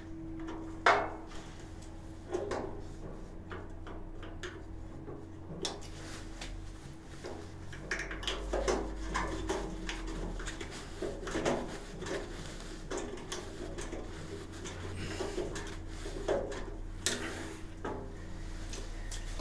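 Irregular clicks, knocks and scraping of hands and a screwdriver working on a gas water heater's brass water-valve assembly, with a sharp click about a second in and busier handling in the second half.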